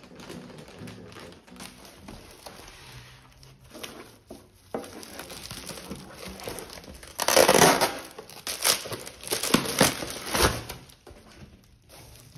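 Plastic air-column packaging crinkling and rustling as it is handled and pulled off a cooking pan, in a series of crackly bursts that are loudest a little past halfway.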